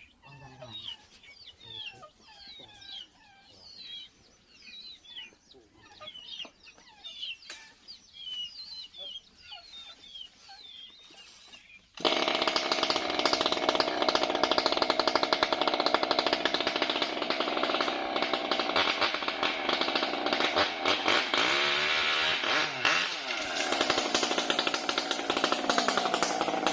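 Birds chirping quietly for about twelve seconds, then a chainsaw engine suddenly comes in loud and running steadily, its pitch wavering for a moment a few seconds before the end.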